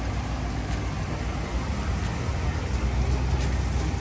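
Steady low rumble of a vehicle's engine and tyres heard from inside the cabin as it rolls slowly over wet pavement, with a few faint taps of rain on the glass.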